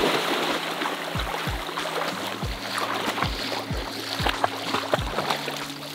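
Two Cavalier King Charles Spaniels splashing through shallow water and swimming, loudest as they plunge in at the start, under background music with a steady bass beat.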